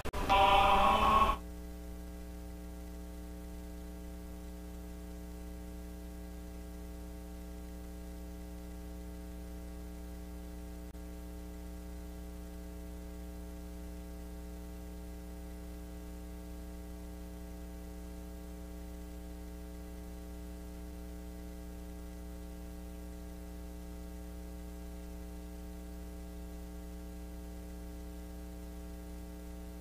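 Steady electrical mains hum, with many evenly spaced overtones, in the broadcast's sound. A louder sound before it cuts off abruptly just over a second in.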